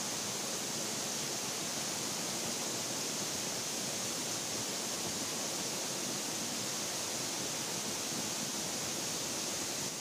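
Steady, even rush of water from a waterfall and the fast-flowing river below it.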